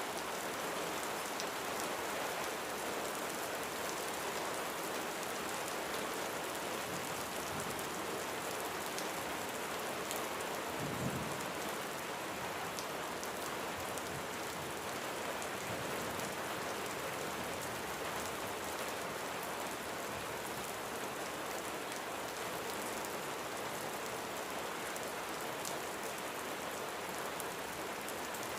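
Steady rain falling, an even hiss, with one brief low thump about eleven seconds in.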